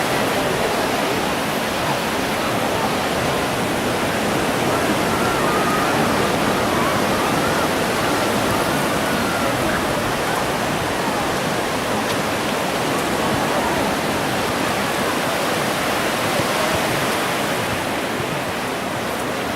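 Steady rushing of ocean surf, an even, unbroken wash of noise.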